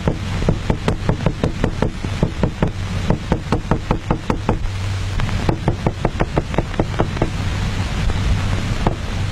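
Small hammer tapping rapidly on a metal block, about four or five sharp knocks a second, pausing briefly about five seconds in and thinning out near the end, over a steady low hum.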